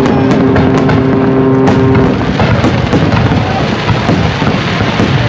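Aerial fireworks shells bursting overhead: a continuous dense mix of booms and crackling. A steady two-note horn sounds over it for about the first two seconds.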